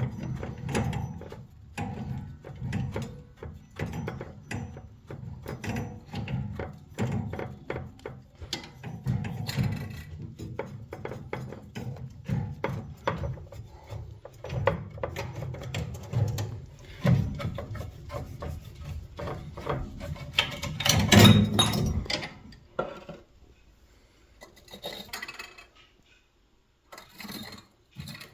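Background music with a steady percussive beat that stops about three quarters of the way through, followed by quieter, irregular scraping and handling sounds.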